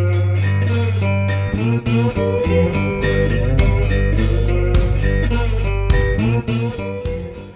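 Outro music: a bluesy guitar tune with bass and a steady beat, fading out near the end.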